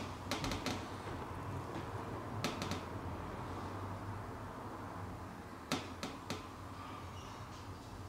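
Short sharp clicks from hands-on chiropractic work on a patient's upper back: a quick run of several clicks near the start, two more a couple of seconds later, and single clicks around the six-second mark, over a faint steady low hum.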